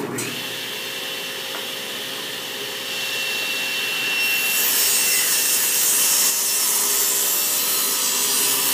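SawStop table saw starting abruptly and running with a steady motor and blade whine. From about three to four and a half seconds in, a board is fed into the spinning blade and a louder, hissing sawing noise of the rip cut joins in.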